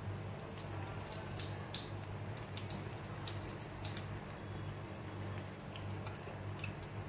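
Onion pakoras deep-frying in hot oil in a kadai, nearly done: a soft sizzle with scattered small crackles and pops, over a steady low hum.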